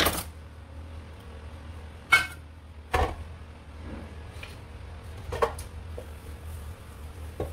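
Sharp knocks and clinks against a stainless steel mixing bowl, five in all, the loudest about two seconds in with a brief metallic ring, as an egg is cracked into the flour and worked in. A low steady hum sits underneath.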